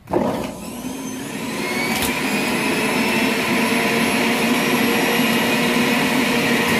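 Electric centrifugal juicer motor switched on. It starts suddenly and spins up with a rising whine over the first couple of seconds, then runs steadily at speed.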